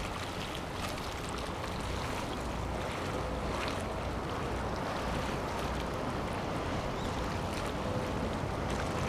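Steady wind and water noise, with a low rumble underneath from a large yacht passing on the river.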